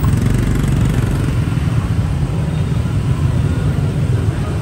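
Busy street traffic, mostly motorbikes, running steadily close by.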